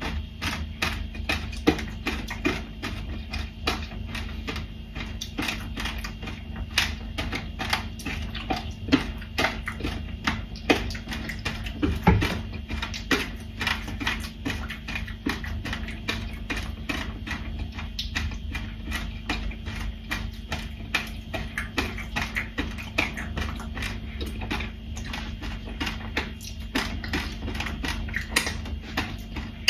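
Rapid, irregular clicking and tapping, several sharp taps a second with a louder knock about twelve seconds in, over a steady low hum.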